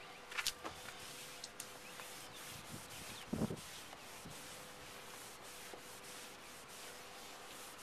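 A cloth towel is rubbed back and forth over a plastic car headlight lens, buffing it during a toothpaste restoration. The scrubbing is faint, broken by a couple of brief knocks.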